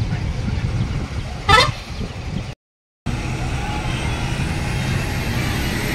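Highway traffic noise: a steady low rumble, with a brief sharp sound about one and a half seconds in. The audio drops out completely for about half a second shortly after.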